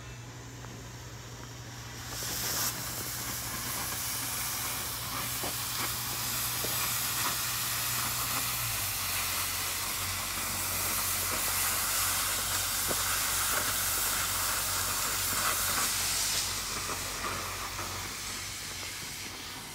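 Gas cutting torch on steel: a steady hiss with scattered crackles that starts about two seconds in and dies away near the end, over a low steady hum.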